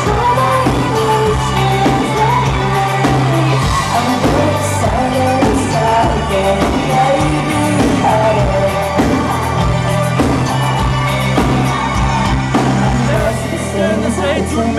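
Live pop-rock band playing in a club, with bass, drums and guitars under a woman singing. It is heard from within the audience, with the hall's echo.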